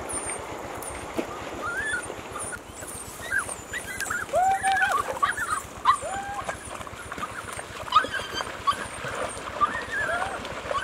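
A dog whining and yelping in a run of short, high-pitched cries that slide up and down, with two longer held whines a little before halfway through.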